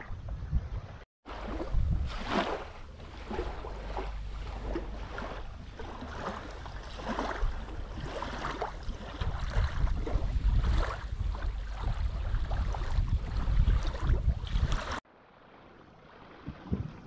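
Water splashing and slapping irregularly against the inflatable hulls of a sailing catamaran, over a heavy rumble of wind on the microphone. The sound breaks off suddenly near the end.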